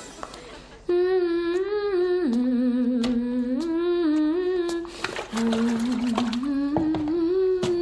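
A person humming a simple tune with closed lips, holding notes and stepping up and down between a higher and a lower pitch, with a short break in the middle. A few light clicks sound over it.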